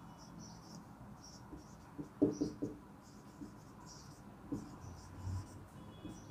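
Marker pen writing on a whiteboard: a run of short, faint scratching strokes as words are written out, with a few soft knocks of the pen against the board about two seconds in.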